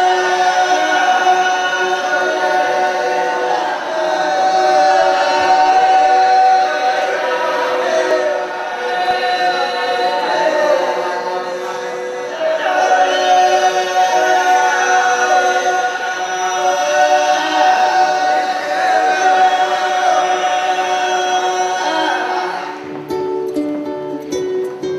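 Wodaabe men's chorus singing without instruments, in repeated phrases of held notes that glide in pitch. Near the end the singing stops and a plucked string instrument starts playing.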